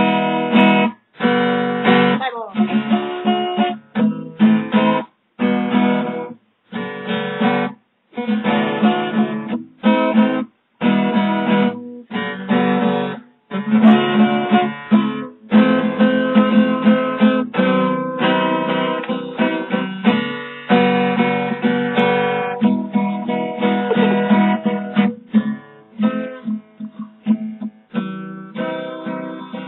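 Acoustic guitar strummed in chords. For the first half the playing breaks off briefly every second or so; after that it runs on more steadily, with lighter, separate notes near the end.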